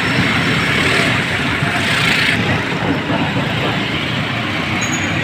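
Steady, loud roadside street noise: traffic running past mixed with the murmur of a crowd.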